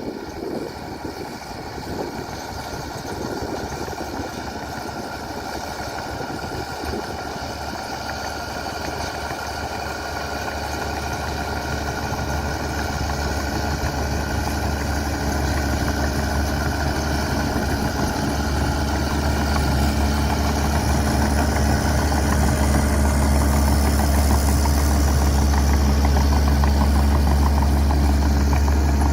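Komatsu D41P bulldozer's diesel engine running steadily with a deep hum, growing gradually louder, mostly in the second half.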